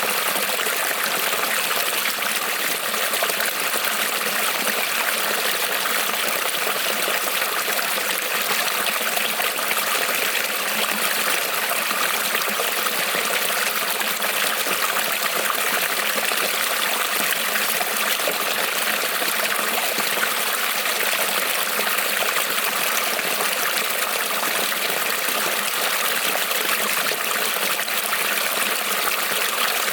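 Small creek rippling and trickling over stones, a steady unbroken rush of running water.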